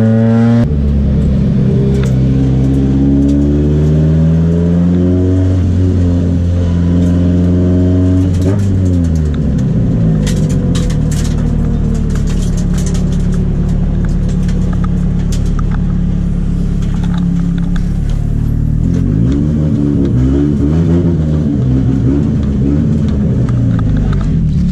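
Drift car's engine heard from inside its cabin, easing off after a run: the engine note rises a little, then falls away about nine seconds in to a steady idle as the car rolls in. A few light clicks follow, and near the end the idle wavers unevenly.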